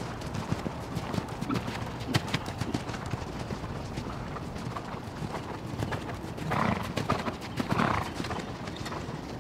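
Horse hooves clip-clopping in an irregular patter of short strikes, with two short louder noises about two thirds of the way through.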